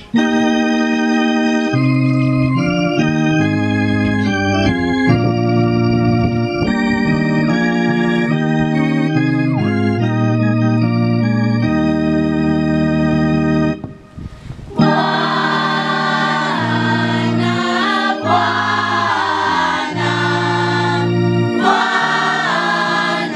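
Organ-style keyboard playing a slow run of sustained chords. It breaks off briefly about fourteen seconds in, then a choir comes in singing a church hymn over the held chords.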